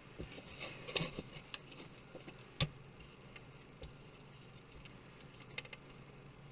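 Scattered light clicks and taps from computer parts and small tools being handled during disassembly, with the sharpest click about two and a half seconds in.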